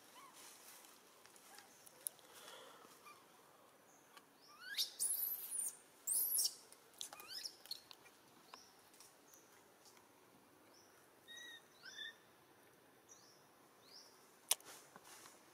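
High-pitched animal calls: a few loud squeals that rise and fall about five to six and a half seconds in, then scattered faint short chirps, with one sharp click near the end.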